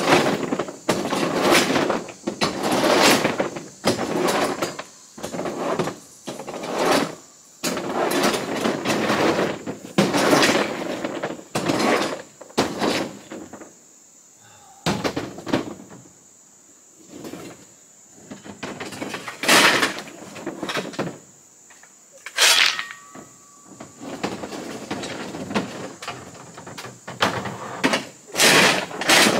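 White rock being scraped and shifted in a pickup truck bed: a run of gritty scrapes every second or so, thinning to a few scattered scrapes in the middle.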